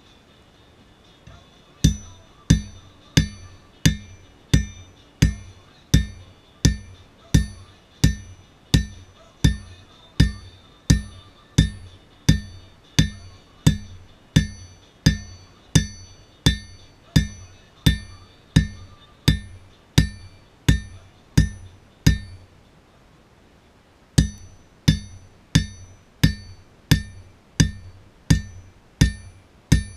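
Hand hammer striking on a steel anvil during forging, in a steady rhythm of about three blows every two seconds, each blow with a bright ring. The blows stop for about two seconds a little past two-thirds through, then start again.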